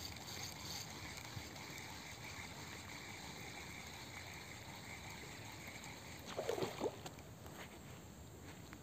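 Faint outdoor ambience with a steady high insect drone over a soft hiss. About six and a half seconds in comes a short, louder burst of sound.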